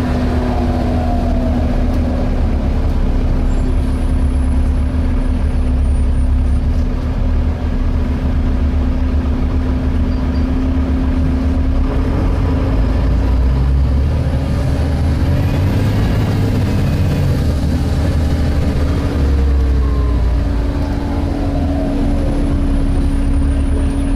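Volvo B7TL double-decker bus heard from inside, engine and driveline rumbling on the move with a steady hum from the cooling fan. Whines rise and fall in pitch as the bus speeds up and slows, near the start, about two-thirds of the way through and again near the end.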